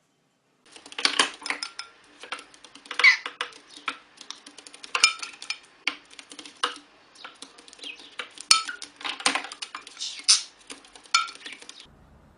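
Rapid, irregular clicking and clinking of small hard objects, in quick flurries, starting about a second in.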